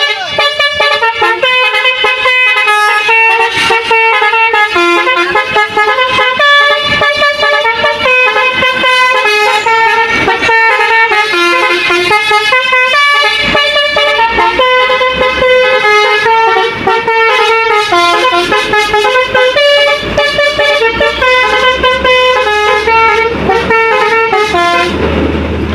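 A truck's basuri musical horn playing a long, loud melody, its notes stepping up and down in quick succession. A low engine rumble comes in during the last few seconds.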